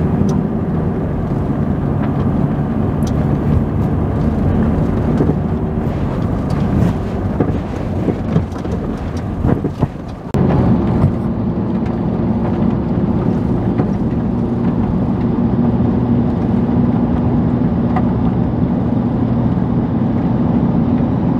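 Toyota 4Runner driving, heard from inside the cab: steady engine and road noise with a low hum, with scattered knocks and rattles while it runs over the rough dirt forest track. About ten seconds in the sound cuts abruptly and comes back steadier as it runs on smooth pavement.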